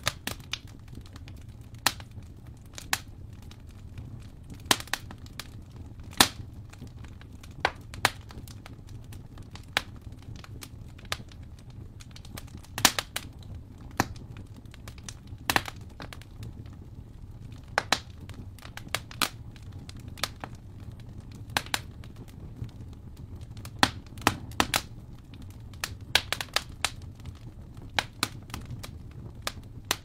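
Wood fire crackling in a fireplace: irregular sharp pops and snaps, some much louder than others, over a steady low rumble.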